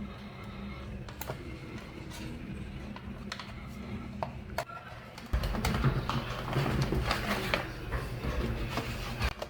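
Scattered clicks and taps on a Dell laptop, like typing on its keyboard. From about five seconds in a louder, denser stretch of handling noise runs on, then cuts off suddenly near the end.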